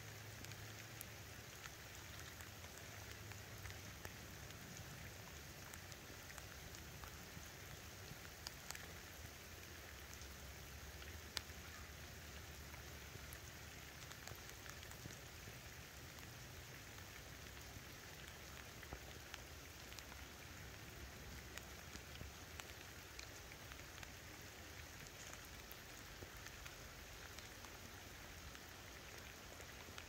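Faint, steady rain: an even hiss of falling rain with scattered single drops ticking, one sharper tick about eleven seconds in.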